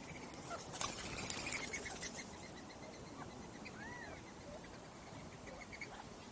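Wild birds chirping: a busy run of short, quick chirps about a second in, then a single call around four seconds that rises and falls in pitch, over a faint steady hiss.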